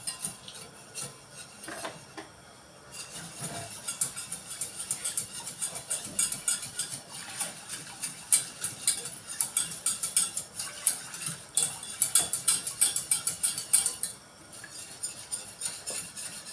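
Wire whisk beating milk into a flour roux for béchamel sauce in a stainless steel pot: fast metallic clicking and scraping of the wires against the pot, stirred nonstop to keep the sauce from going lumpy. It is busiest in the middle, with brief lulls about two seconds in and near the end.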